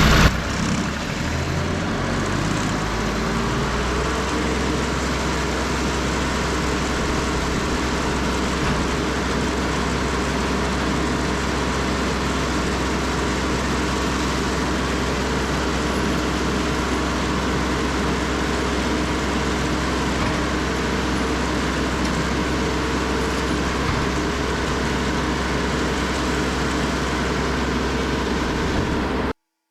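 Bandsaw sawmill's engine revving up over the first couple of seconds, then running steadily with an even hiss over it. It stops abruptly near the end.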